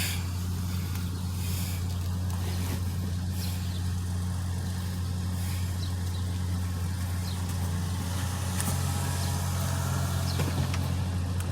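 Car engine idling with a steady, even low hum; a second low tone joins about eight and a half seconds in.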